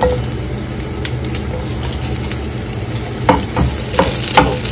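Sliced red onion sizzling in hot olive oil in a nonstick pan as a spatula stirs it, being sautéed. Several sharp taps and scrapes of the spatula against the pan come in the last second and a half.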